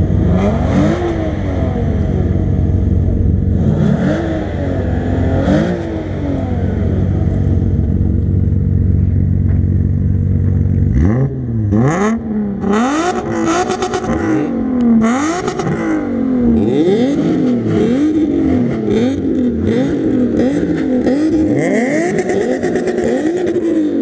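Alfa Romeo 3.0 24-valve Busso V6 idling with a few short revs, then from about halfway being blipped repeatedly, about one quick rev a second, to the end.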